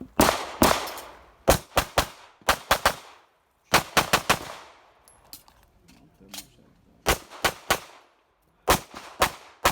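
Handgun fired rapidly in a course of fire, about twenty shots in quick strings of two to four, each shot ringing out with an echo. There is a gap of about two seconds near the middle with only a faint click before the shooting resumes.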